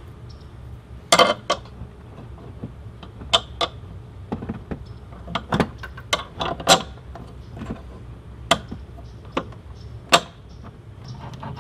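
Irregular sharp metal clicks and clinks, about fifteen of them, as a TV's mounting bracket is fitted onto a metal swivel-arm wall mount and a bolt is slid through the lined-up holes. A steady low hum runs underneath.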